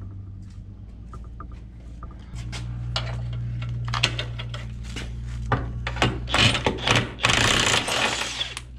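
Cordless impact wrench hammering at bolts on a car's underside, in short bursts that build to a long, loud run near the end. Sharp clinks of metal tools come before it.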